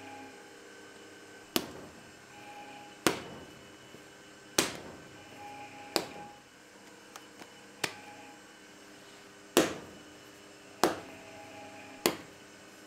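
Bread dough being shaped by hand, slapped down onto a marble worktop: about eight sharp slaps, roughly one every second and a half.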